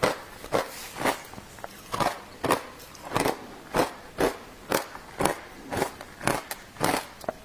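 Matcha shaved ice being crunched between the teeth, about two sharp crunches a second at an even pace.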